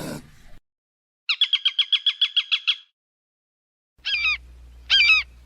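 Small bird calls: a fast, even trill of about ten notes a second lasting a second and a half, then after a pause two separate twisting chirps about a second apart over a faint low hum.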